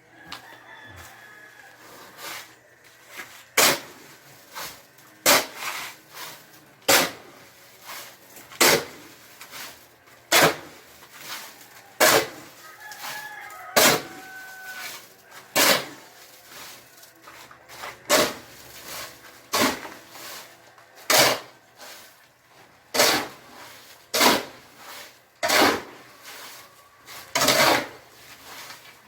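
Shovel strokes scraping and chopping through concrete being mixed by hand, one about every second and a half to two seconds. A rooster crows faintly in the background.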